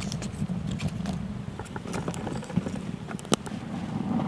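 Dry sticks crackling and clicking as they are pushed into a small fire in a dug fire hole, with one sharp snap a little past three seconds in, over a steady low rumble.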